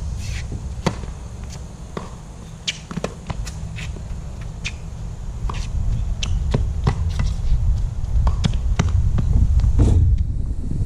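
Tennis serve and rally on a hard court: the sharp pock of the ball off racket strings and the ball bouncing on the court, a crisp tap every half second to a second. A steady low rumble runs underneath.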